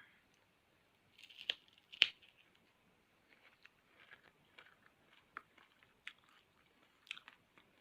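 A person biting into a tiny unripe papaya and chewing it with crisp crunches. The two sharpest bites come about one and a half and two seconds in, followed by softer, irregular chewing.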